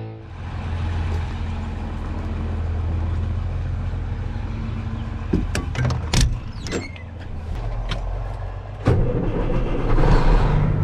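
A vehicle engine running steadily, with a few sharp clicks and knocks about halfway through. It grows louder near the end.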